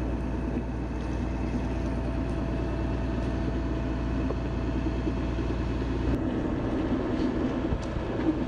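A sailboat's auxiliary engine running steadily while motoring, a constant mechanical hum; its deepest rumble drops away about six seconds in.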